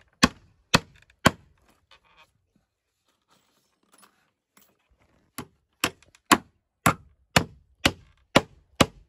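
Claw hammer driving a nail into a wooden plank: three blows, a pause of about four seconds, then a run of eight blows at about two a second.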